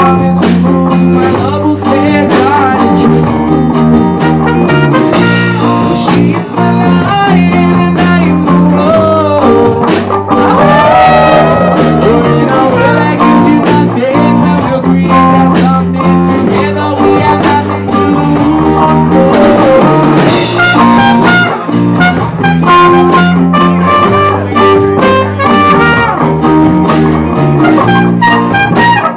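A live band plays a song with guitar, drum kit and trumpet at a steady beat.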